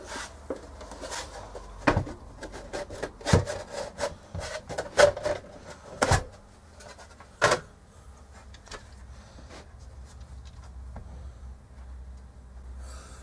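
Handling noise from the metal chassis of an opened electronic test instrument, a universal counter, being turned over in the hands: a run of knocks, clicks and rubs for the first half, then only faint rustling.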